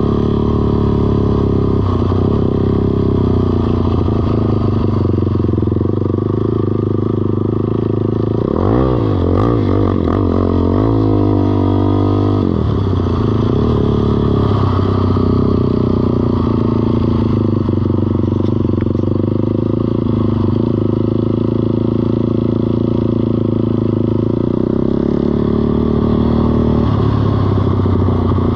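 ATV engine running steadily. About a third of the way in, its pitch rises and falls for a few seconds as the throttle is worked, then settles.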